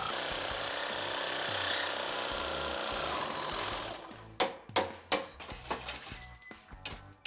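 Reciprocating saw (Sawzall) cutting steel, its motor winding down a little after three seconds, followed by a series of sharp knocks.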